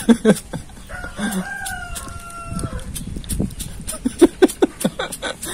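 Thumb repeatedly flicking the flint wheel of a gas lighter that is out of gas, giving sharp clicks as it throws sparks onto a cigarette paper. A rooster crows once about a second in, a call lasting nearly two seconds.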